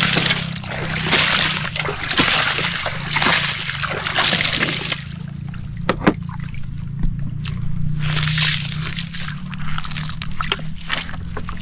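Water splashed and sloshed by hand over a plastic toy dump truck's bed full of wet gravel, in surges that come and go, over a steady low hum.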